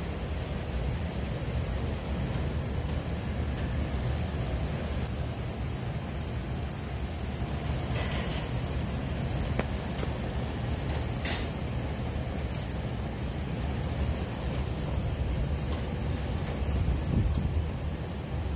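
T-bone steak sizzling on the hot grates of a gas grill: a steady hiss with a few faint pops, over a low rumble of wind on the microphone.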